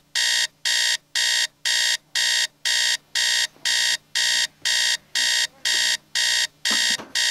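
Electronic alarm clock going off: a steady train of identical high-pitched beeps, about two a second. Near the end, knocks and rustling from someone reaching for it.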